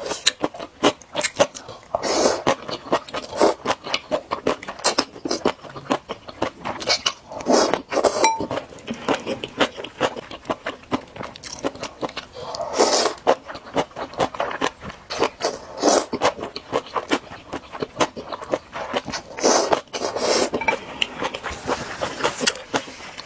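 Close-miked chewing and biting of spicy noodles with crunchy toppings such as duck intestine, tripe and gongcai. The sound is many sharp, irregular wet mouth clicks and crunches, with a few louder bursts.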